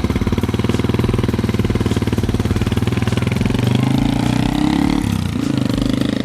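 Small motorbike engine running loud and close, its firing pulses speeding up over the first few seconds; about five seconds in the pitch drops briefly and then levels off.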